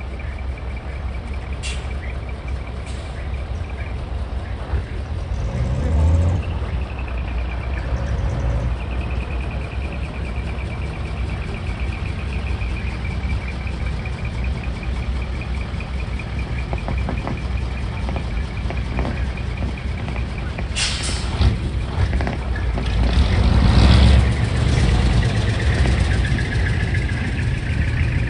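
Heavy diesel trucks running at low speed as they roll slowly past, with a sharp air-brake hiss about three-quarters of the way through. The engine rumble swells near the end as a second truck approaches. A faint high warbling tone runs through the middle.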